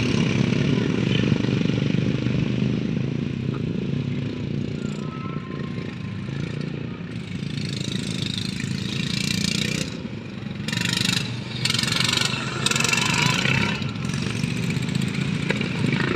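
Racing lawnmower engines running steadily, with a few louder, noisier surges partway through.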